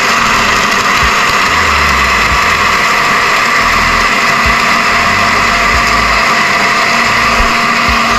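Countertop electric blender running steadily and loudly, churning star apple pulp with water into a purple liquid.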